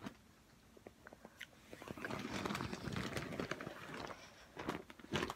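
Scratchy, rustling mouth noises with many small clicks as a spoiled-milk-flavoured BeanBoozled jelly bean is chewed, starting about a second and a half in, with a few sharper knocks near the end.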